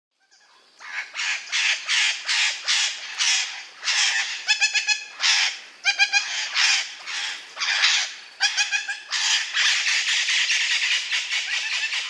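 Parrot squawking: harsh, raspy calls in quick succession, about two or three a second, starting about a second in, with a few shorter pitched calls mixed in and one long unbroken squawk near the end.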